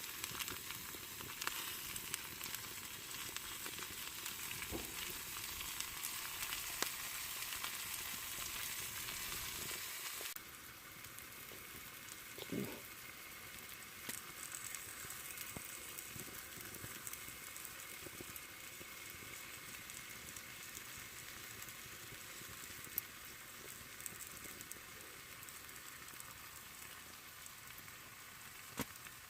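A steady sizzling hiss with scattered small crackles and clicks. It drops quieter abruptly about ten seconds in.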